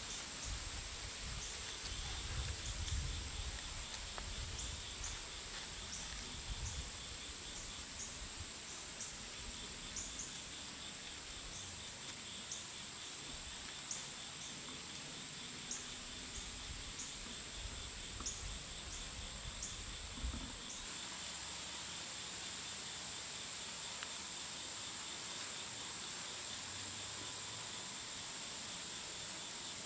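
Steady high-pitched drone of insects chirring in the woods. A low rumble runs underneath and stops about two-thirds of the way through.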